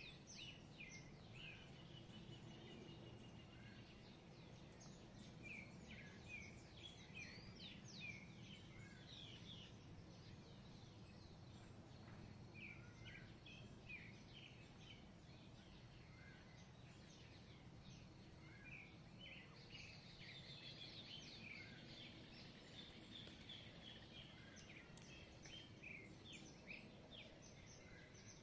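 A chorus of wild birds singing, many short high chirps and phrases overlapping, thickest in the second half, over a faint steady low rumble.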